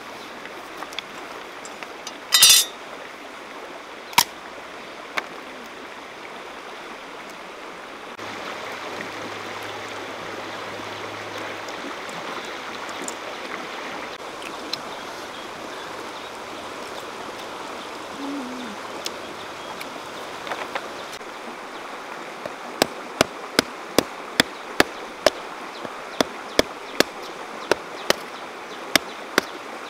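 Steady rush of a shallow stream over rocks, with a short clatter a couple of seconds in. From a little over twenty seconds in, a run of sharp knocks about two or three a second as a hand-held tool strikes seed pods against the stones.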